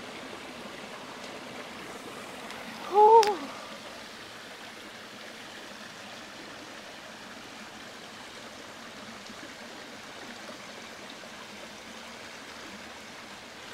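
Shallow rocky stream flowing steadily over stones. About three seconds in, a person gives a short hummed 'mm'.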